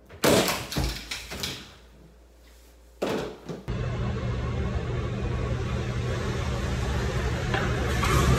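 A loud thump about a quarter second in, followed by several knocks: a person tumbling out of a handstand in a small room. From about four seconds in, a steady rumble in an echoing parking garage, growing louder toward the end as a car approaches.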